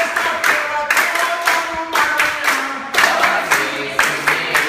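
Capoeira roda: a group singing together over steady hand clapping, about two claps a second.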